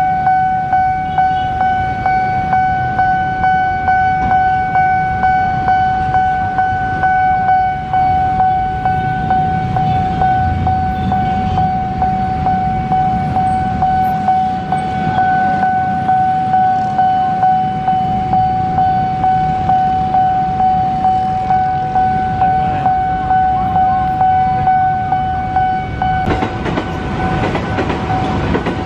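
Railway level-crossing warning bell ringing: one steady pitched ding repeated over and over while the barrier is down, warning of an oncoming train. About two seconds before the end, the noise of an approaching KRL electric commuter train rises under it.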